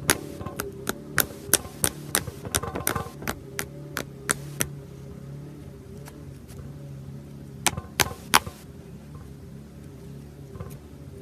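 Crunchy slime being squeezed and pressed, giving irregular sharp crackles and pops, thick in the first few seconds, then a few more later, over a steady low hum.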